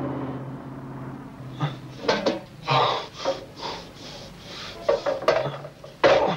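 Metal trash-can lid clattering and knocking in a string of short, irregular rattles.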